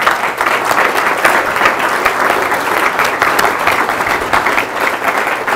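Audience applauding: many people clapping at once, steady and dense.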